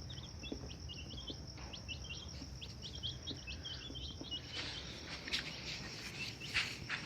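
Small birds chirping: a quick run of short, high chirps, several a second, then a few louder scattered chirps in the second half, over a steady high-pitched drone.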